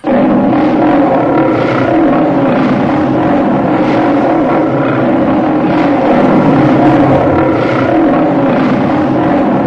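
A man in a werewolf mask roaring: one long, loud, steady roar that starts suddenly.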